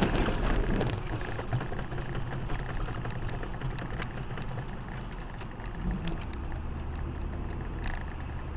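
Steady engine and road noise inside a moving car, picked up by a dash cam.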